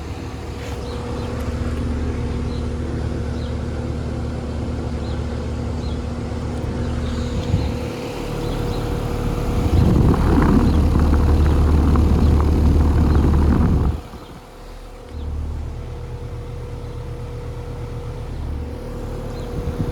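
Tempstar Performance Series outdoor air conditioner condenser running in cool mode: a steady hum from the compressor and fan with a constant tone. About ten seconds in, a louder rush of airflow and noise lasts about four seconds, then drops away briefly before the steady hum returns.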